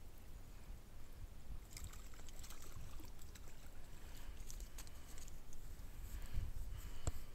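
Faint splashing and lapping of water, with a steady wind rumble on the microphone and a few small clicks and knocks of handling.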